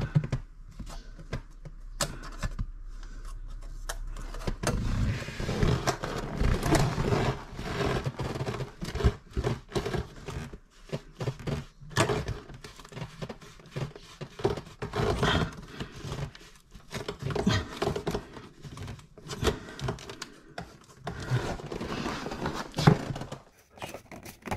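Handling noise of a plastic warm-air duct and round vent outlet for a parking heater being pushed and fitted into a wooden cabinet: scraping and scattered knocks and clicks. A low hum runs under the first few seconds.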